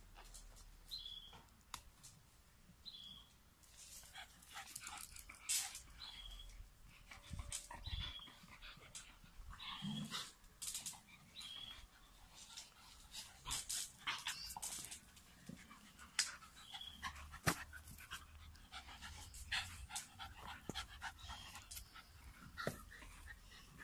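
Dogs panting and sniffing close by, with scuffling and knocks from play with a toy ball on grass. A short high chirp recurs every second or two.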